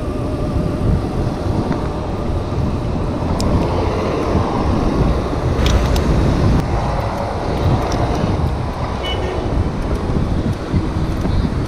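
Wind rumbling on the microphone of a chest-mounted action camera while cycling through city traffic, with road and car noise around. A few sharp clicks come through about three and a half and six seconds in.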